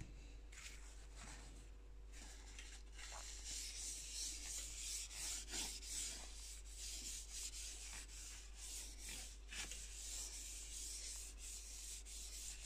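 Oil being wiped and rubbed across the surface of a carbon steel griddle: a dry, scratchy rubbing in uneven, back-and-forth strokes.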